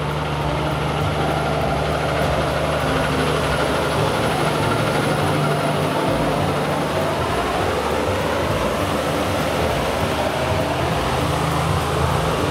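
Kenworth C509 logging truck with its Cummins X15 diesel driving along a wet road: a steady engine note under a hiss of tyres on the wet surface.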